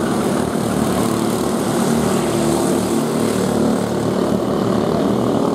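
Several racing go-karts' 5 hp Briggs & Stratton flathead (Raptor) engines running hard around a dirt oval, a steady, overlapping drone of small single-cylinder engines.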